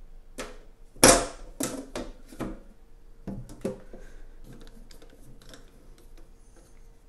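Sheet-metal lid of a rack-mount battery case set down onto the steel case: a loud clank about a second in, then several lighter knocks and taps as it is shifted and seated, fading to faint small ticks.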